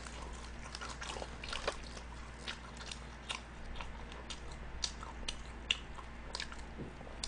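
Close-up chewing and crunching of crispy honey-glazed fried chicken: a scatter of small, irregular crackling clicks at a low level.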